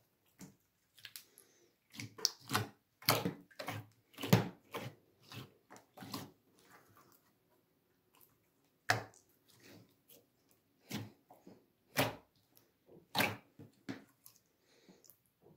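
Hands kneading and stretching clear slime: irregular wet squelches and sharp pops in uneven clusters, with a quiet stretch about halfway through.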